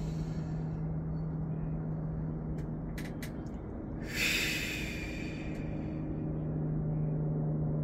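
A woman breathing out audibly through her lips about four seconds in, a slow exhale in a paced breathing exercise (in through the nose, out through the lips), over a steady low hum with a few faint clicks before it.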